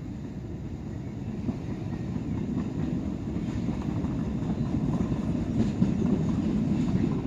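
A train running along the railway line, its rumble growing steadily louder as it approaches.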